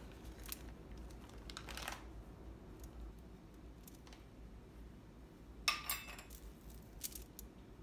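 Faint kitchen handling sounds: light taps and rustles as shredded mozzarella is spread from a metal measuring cup onto dough on aluminium foil. There is a brief rustle about two seconds in and a short, louder clatter about six seconds in.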